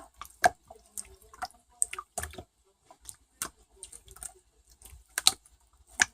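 Irregular sharp clicks and taps, roughly two a second at uneven spacing, with quiet gaps between them.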